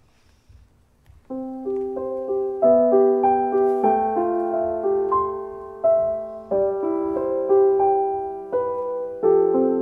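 Piano music starts about a second in after a near-silent pause: chords with a melody over them, each note struck and then fading, as the closing music of a worship service.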